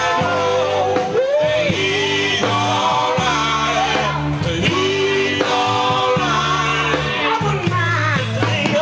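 Gospel group singing with a live band: vocals bending and sliding over a bass line and electric guitar.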